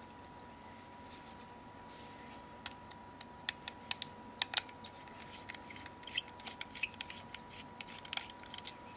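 Small Phillips screwdriver unscrewing the tiny camera screws from a Nokia X7's metal frame: light, irregular clicks and ticks of the tip in the screw heads, starting about three seconds in and loudest around the middle, over a faint steady hiss.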